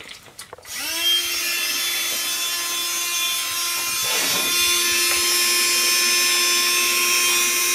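A small electric motor in a battery-powered gadget spins up a little under a second in and runs with a steady high whir, its pitch rising as it starts and then holding level. The gadget has just been switched on and is working.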